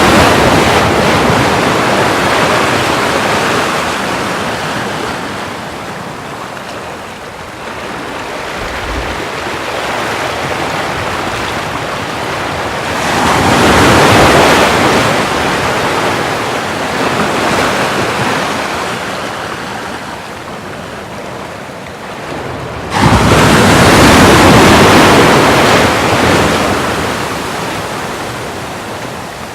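Ocean waves breaking on the shore, the rushing surf swelling and fading in slow surges about every ten seconds, with one wave crashing in suddenly near the end.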